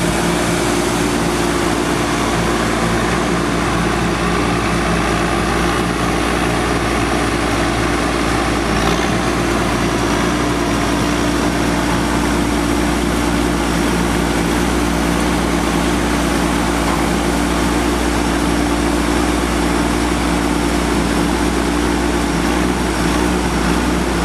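A 1989 John Deere 8960 tractor's Cummins six-cylinder turbo diesel engine running at a steady speed, with an even, unchanging hum and low rumble throughout.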